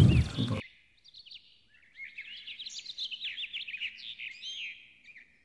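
Small birds chirping: many quick, high chirps and twitters in a continuous run, starting about a second in.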